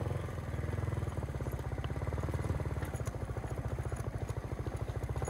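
Motorcycle engine running steadily, a fast even beat of firing pulses with no change in speed.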